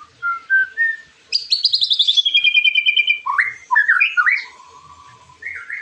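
White-rumped shama singing a varied song: a few rising whistled notes, then a fast trill that slides down in pitch, then lower swooping whistles and a held note near the end.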